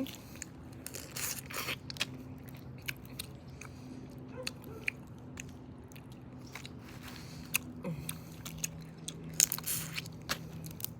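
Boiled crawfish being cracked, peeled and chewed: irregular sharp shell crackles and clicks with chewing, in denser clusters about a second in and near the end. A steady low hum runs underneath.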